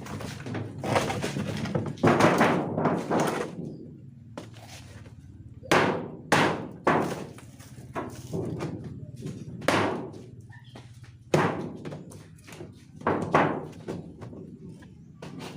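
Irregular thunks, knocks and scraping as the cabinet of a scrapped single-door LG refrigerator is pried and knocked apart by hand.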